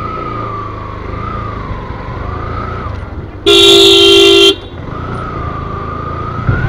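Motorcycle engine running at low speed, with one loud horn honk lasting about a second, halfway through.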